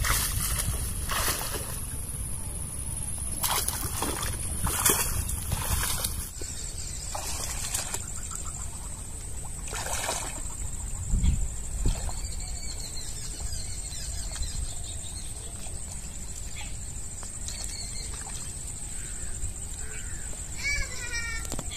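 Water sloshing and splashing with rustling plants as someone wades through a weedy canal to pull up water lily stems: several splashes in the first six seconds and another around ten seconds. A steady high insect drone runs underneath, and a bird calls briefly near the end.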